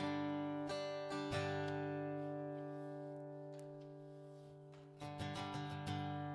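Acoustic guitar strummed: a chord struck at the start with a few more strokes in the first second and a half, left ringing and slowly fading, then strummed again about five seconds in.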